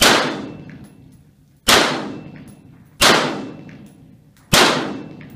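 Four shots from an AR-15 pistol in 5.56/.223, about a second and a half apart, each with a long echoing tail under a covered shooting-range roof.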